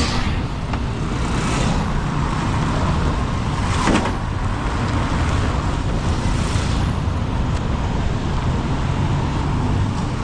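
Road traffic: a steady low engine rumble with several vehicles passing close by, each a brief rush of noise, about every two seconds in the first half.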